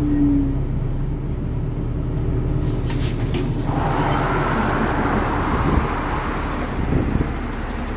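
City bus in motion, heard from inside the passenger cabin: a steady low rumble of the drive and the road. A hissing rush comes in about halfway through and fades near the end.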